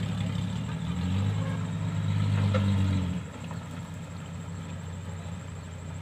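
Dump truck's engine pulling through a flooded, muddy track, working hard for the first three seconds, then dropping off suddenly to a steadier, quieter engine hum.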